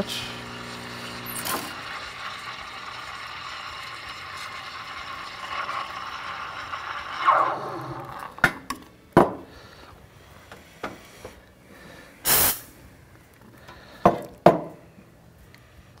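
Steam wand of an ECM Mechanika V Slim heat-exchange espresso machine frothing milk in a stainless steel pitcher: a steady hiss with a faint thin whistle, the steam pressure holding steady; the hiss falls in pitch and stops about seven seconds in as the steam is shut off. After that come a few sharp knocks and clinks of the metal pitcher, and a short, loud burst of hiss.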